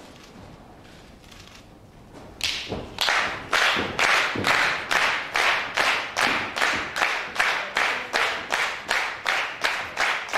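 Crowd clapping in unison in a large hall, a steady beat of about two to three claps a second that starts about two and a half seconds in. A few heavier thuds are mixed in among the claps.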